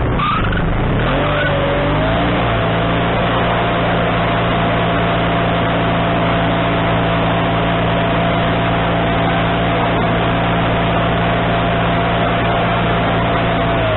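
Wood-Mizer LT40HD sawmill's gasoline engine running. About two seconds in it is throttled up to a steady higher speed with a thin high whine over it, and it begins to slow right at the end.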